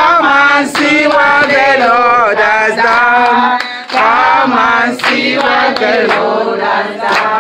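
A woman singing a worship song with other voices joining in.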